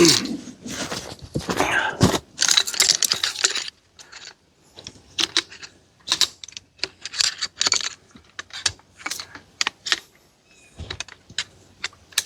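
Handling noise: rustling and clattering for about the first three and a half seconds, then a run of irregular light clicks and taps of small hard objects.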